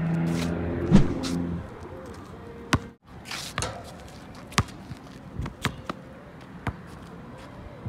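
Basketball bouncing on a concrete court: a run of sharp, separate bounces about once a second. A brief held pitched sound comes before them near the start.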